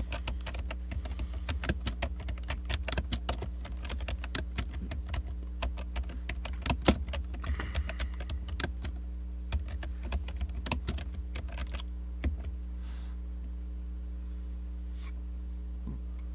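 Typing on a computer keyboard: rapid, irregular key clicks for about twelve seconds, then they stop. A steady low electrical hum runs underneath.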